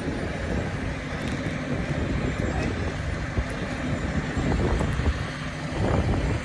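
Wind buffeting a phone's microphone outdoors: an irregular low rumble, with a faint steady low hum behind it.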